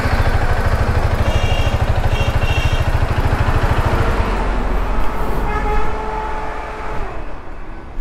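KTM Duke 250's single-cylinder engine running at low speed as the bike rolls forward, a fast, even low rumble that fades away about four seconds in.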